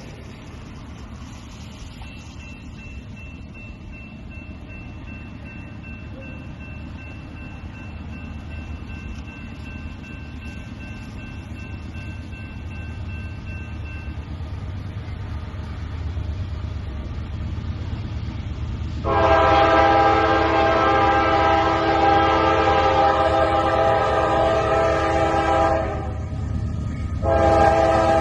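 Diesel freight locomotive approaching, its low rumble growing steadily louder. About two-thirds of the way in, its multi-chime air horn sounds a long, loud blast, breaks off briefly, then sounds again near the end.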